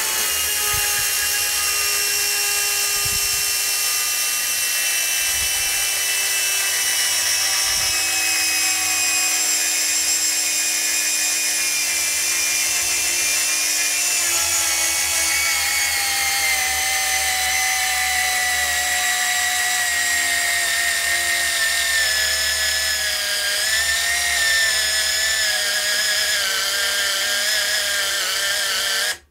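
Bosch EasyCut 12 cordless Nanoblade saw running under heavy load in a plunge cut into a hardwood block. Its motor whine sinks steadily in pitch from about halfway as the saw bogs down, then cuts off suddenly near the end: the small 12 V saw is overloaded, too much for it.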